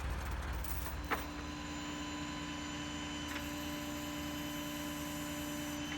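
A low rumble, then a click about a second in, after which a steady machine hum sets in and holds, with a faint tick near the middle.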